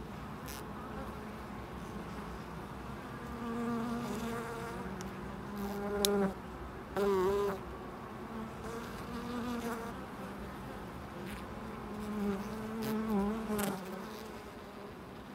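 Honeybees buzzing at the hive entrance: a steady hum from the colony, with single bees' wing buzz swelling and fading as they fly close past, loudest about six to seven seconds in and again near the end.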